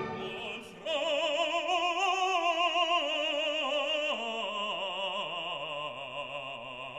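Male gospel singer holding long notes with heavy vibrato, stepping down in pitch twice, over sparse backing with the bass and drums dropped out.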